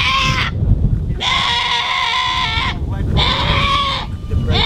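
Young goat bleating in four drawn-out calls, the second the longest at about a second and a half, the last one starting near the end.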